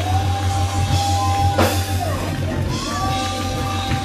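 Loud live church praise-break music with drum kit and long held high notes that slide down as they end, and a sharp crash about a second and a half in.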